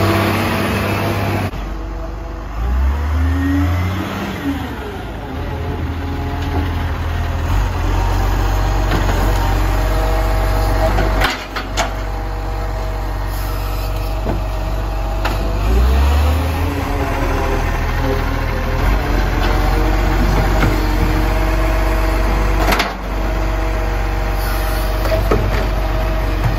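Side-loader garbage truck's diesel engine running and revving as its automated arm lifts a wheelie bin, tips it into the body and lowers it again, with a steady whine through the lift and two sharp knocks, about eleven and twenty-three seconds in.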